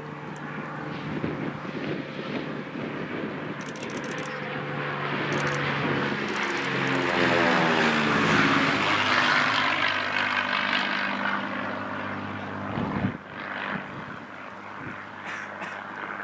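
Cessna R182 RG single-engine propeller airplane, its six-cylinder Lycoming O-540 engine and propeller, flying a low pass. The drone grows louder as it approaches, is loudest about halfway through as it passes overhead with its pitch dropping, then fades as it climbs away.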